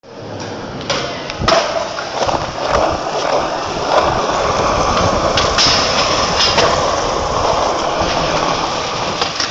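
Skateboard wheels rolling over rough concrete, a steady grinding rumble, with sharp clacks now and then of the board or trucks striking the ground.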